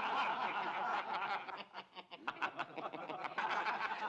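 Chuckling and snickering laughter, turning into quick repeated ha-ha pulses in the second half.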